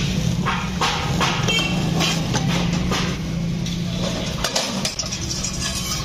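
Lever-arm hand shear cutting thin sheet steel, with short metallic clanks and rattles of the sheet. Under it runs a steady low engine-like hum that fades out about four seconds in.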